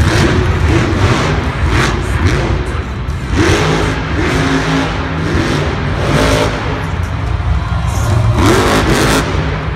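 Monster truck's supercharged V8 engine revving hard over a heavy low rumble, its pitch climbing in several separate revs, roughly three seconds apart.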